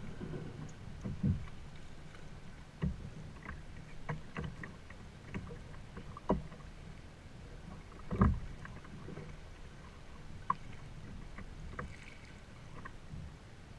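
Choppy water lapping and slapping against a plastic fishing kayak's hull, with irregular knocks and clicks from the boat and tackle; the heaviest thump comes about eight seconds in.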